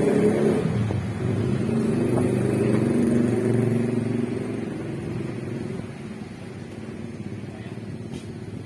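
A motor vehicle's low engine rumble that fades from about four seconds in and then runs on more quietly.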